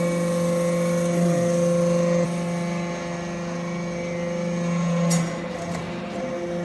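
Hydraulic metal briquetting press running: a steady hum from its motor and pump. A higher tone in the hum drops away a little over two seconds in, and there is a brief click about five seconds in.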